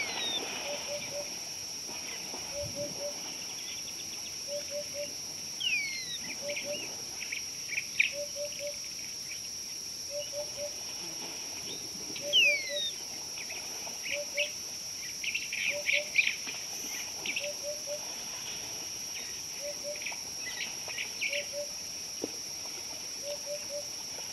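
Steady high drone of insects with birds calling over it: a short low call repeating about every one and a half seconds, a couple of clear falling whistles, and bursts of chirping.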